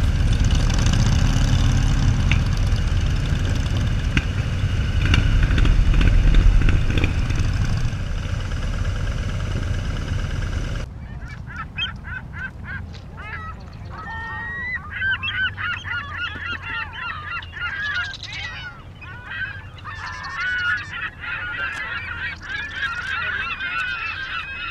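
A group of motorcycles rumbling along a cobbled street, swelling about six seconds in. The sound cuts off sharply about eleven seconds in, and many birds then call over one another, their calls wavering up and down.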